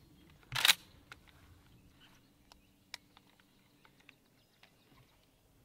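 A single shotgun shot about half a second in, short and sharp, then a few faint scattered clicks.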